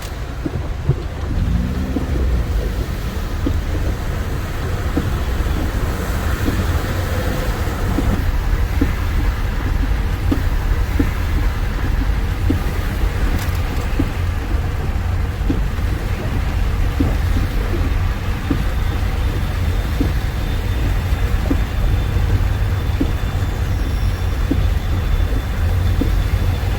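Steady low rumble of road vehicles, with faint short ticks scattered through it.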